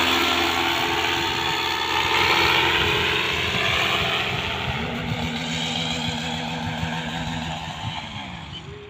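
Engine and pusher propeller of a motorised hang glider (microlight trike) droning in flight, fading steadily as the craft flies away.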